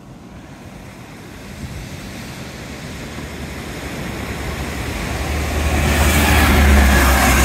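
Class 165 diesel multiple unit train approaching along the track and passing close by. Its rumble grows steadily louder and is loudest near the end as it draws level.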